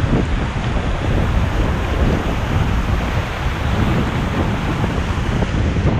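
Wind buffeting the microphone over the steady wash of surf against a rocky shore.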